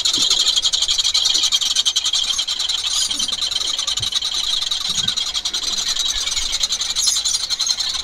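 Caged tengkek buto kingfishers calling with a continuous, rapid, high-pitched chatter, loud and unbroken.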